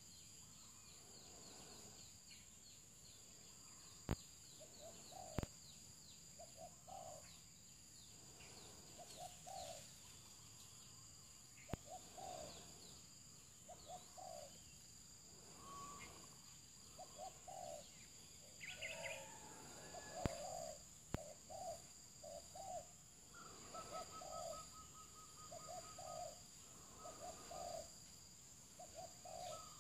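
Dove cooing in short repeated phrases, one every second or two, over a steady high insect drone. A few sharp clicks sound in the first two-thirds, and a thin higher call joins near the end.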